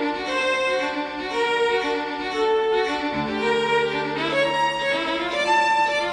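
Classical background music: a slow violin melody of held notes over a low sustained string line.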